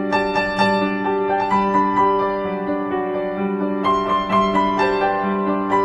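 Background music: a slow piano piece, single notes struck over sustained chords.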